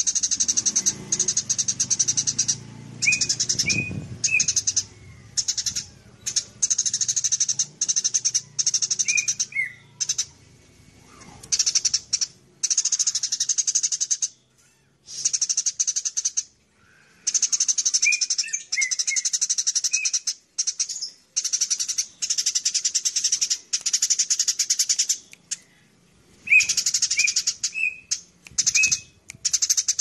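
Eurasian tree sparrow chirping in rapid, high-pitched bursts of a second or two, with short gaps between them and a few lower sliding chip notes now and then.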